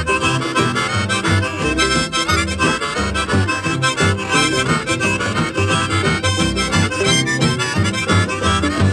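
Instrumental break in a country song: a free-reed lead over a bass line and a steady beat.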